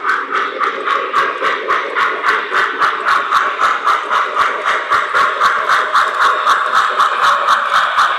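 Model steam locomotive's sound system chuffing steadily at about five chuffs a second as the O-gauge engine runs along the track.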